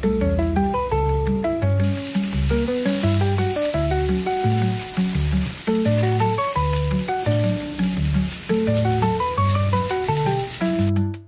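Background music, a quick melody of short notes over a moving bass line, plays over the hiss of food sizzling in hot oil in a pot. The sizzle cuts off suddenly just before the end.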